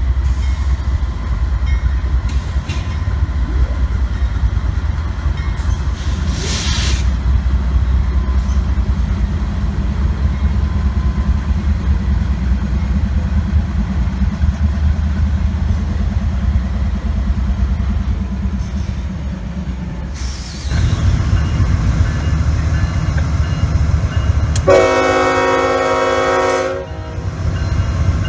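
A diesel-hauled freight train of covered hopper cars rolling past, with a steady low rumble from the locomotives and rail cars and a brief hiss about six seconds in. About twenty seconds in, the sound changes to another train, and near the end a locomotive air horn sounds once for about two seconds, a chord of several notes.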